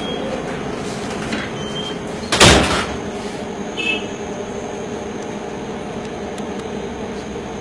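Steady rumbling noise of a moving vehicle, with one loud bang about two and a half seconds in and a smaller knock near four seconds.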